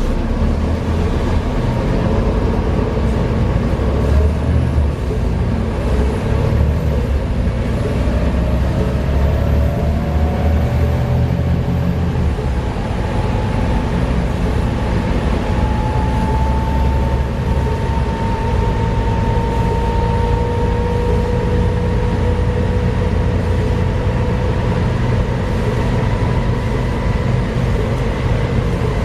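Volvo B7TL double-decker bus on the move, heard from on board: a steady six-cylinder diesel and drivetrain drone with a gear whine that rises in pitch as the bus gathers speed, then holds. The drivetrain noise is what the uploader puts down to a bad differential.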